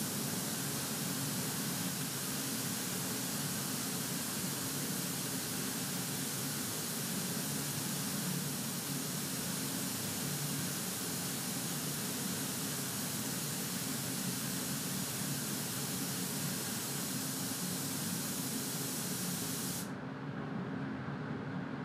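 Compressed-air gravity-feed spray gun firing one continuous, unobstructed jet of atomised spray: a steady loud hiss that cuts off suddenly about twenty seconds in, with a steady low hum underneath.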